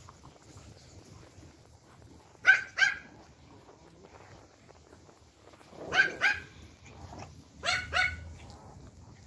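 Pomeranians barking: three quick double yaps, high-pitched and sharp, spaced a few seconds apart, the first pair the loudest.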